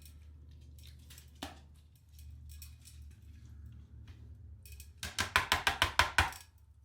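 A quick run of about a dozen sharp clicks and crackles over a second and a half near the end, from kitchen handling, over a low steady hum.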